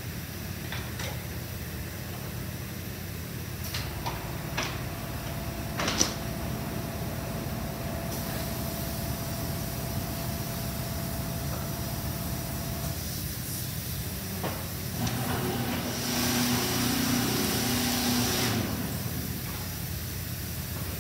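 Kiln machinery humming steadily, with a few sharp metallic clanks in the first six seconds and a thin steady whine for several seconds after. About three quarters of the way in, a loud hissing rush lasting about three seconds: red-hot raku pots quenched in cold water.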